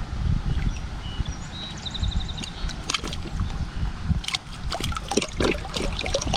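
Creek water sloshing and splashing around someone wading, over a low wind rumble on the microphone. About two seconds in, a bird gives a short, evenly paced high trill, and sharp splashes and clicks follow in the second half.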